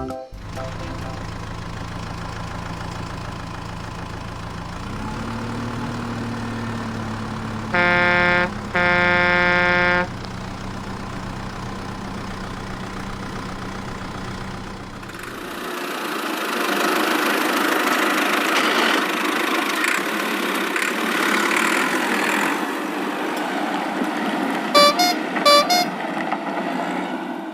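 Cartoon vehicle sound effects: a steady low engine hum, broken about eight seconds in by two long horn blasts in a row. About halfway through it gives way to a rougher, noisier engine sound, with two short horn toots near the end.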